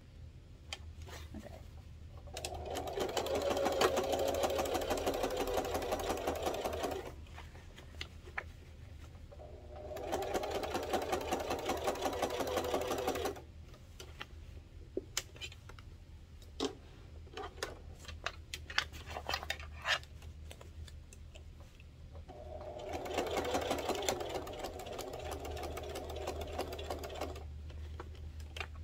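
Sewing machine top-stitching through layered fabric in three runs of a few seconds each, with short clicks and handling sounds in the pauses between runs.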